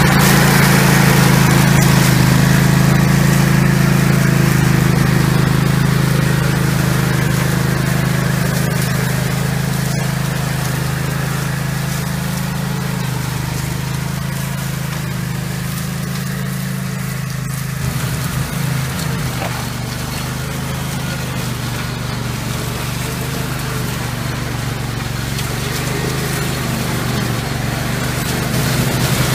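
Orec Rabbit RMK150 ride-on mower running steadily under load, its cutting deck mowing grass and dry leaf litter.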